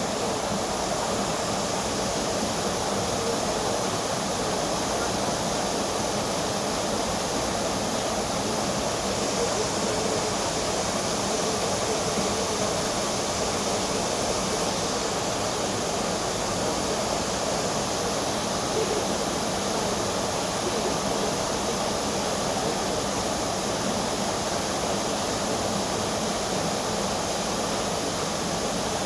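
Waterfall pouring steadily: a dense, even rush of water with no breaks.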